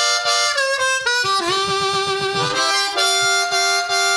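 Seydel 1847 Lightning 10-hole diatonic harmonica in compromise tuning played very loud: a short phrase of chords and single notes that change every fraction of a second, with a longer held chord in the middle.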